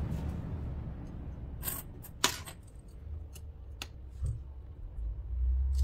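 A handful of small, sharp clicks and taps from a precision screwdriver and the parts of an opened Nokia 2.4 smartphone as it is put back together. The clicks are scattered, and the loudest comes a little past two seconds in.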